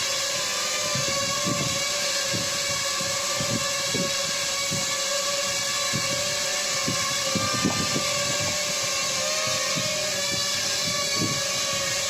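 Homemade quadcopter's motors and propellers whirring steadily as it hovers, the pitch wavering slightly as the controller corrects it, with irregular low gusts of buffeting.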